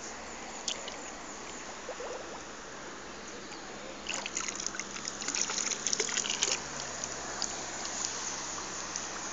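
A child's hands splashing and scooping in shallow seawater, a cluster of small trickling splashes from about four seconds in lasting a couple of seconds, over a steady hiss.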